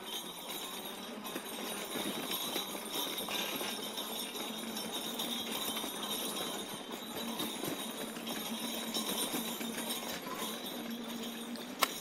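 Electric trike and its load rattling and jingling over a rough, bumpy trail, a continuous clatter with a faint steady hum underneath. A single sharp click sounds near the end.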